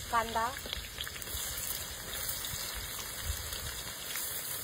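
Hot oil sizzling steadily in a large black wok (kadhai) with cumin seeds and curry leaves frying, as chopped onions are tipped in.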